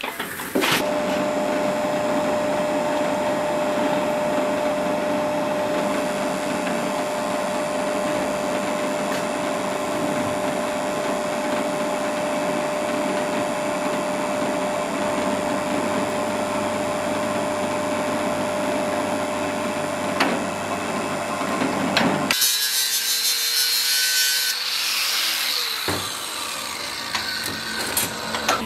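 Drill press running steadily, its bit cutting into a small steel block held in a machine vise. About 22 seconds in the sound changes abruptly to a harsher, hissing machine noise with a few brief falling whines.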